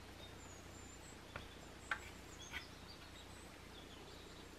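Quiet room tone with a low hum and faint high bird chirps, plus three small clicks from hands shaping bread dough on a wooden cutting board, about one and a half to two and a half seconds in.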